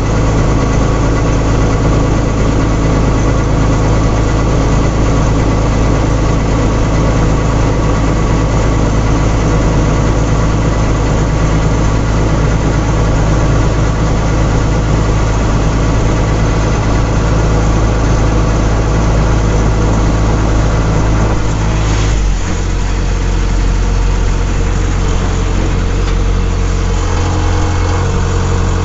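Engine of a rice-harvesting machine running steadily. Its note changes about two-thirds of the way through and shifts again near the end.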